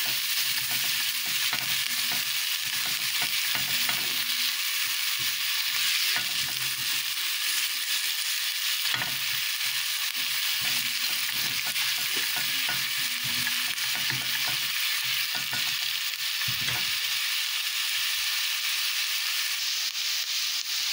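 Diced onions sizzling steadily in hot oil in a nonstick pot, with the scraping strokes of a silicone spatula stirring them: the onions are being sautéed until soft.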